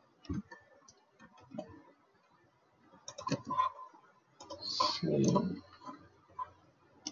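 Computer keyboard typing and mouse clicks: scattered single keystrokes, with a louder, longer burst of noise about five seconds in.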